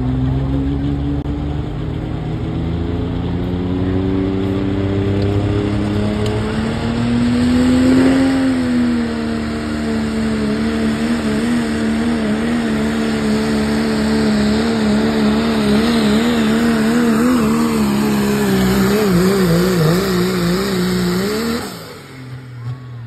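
Diesel 4x4 pickup truck at full throttle pulling a sled. The engine's pitch climbs for the first eight seconds or so, dips, then holds with a wobbling, wavering pitch before falling away sharply near the end.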